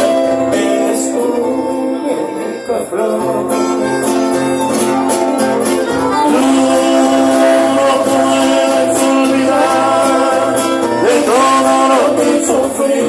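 Live band playing an instrumental break between sung verses: accordions holding long, steady notes over strummed acoustic guitars.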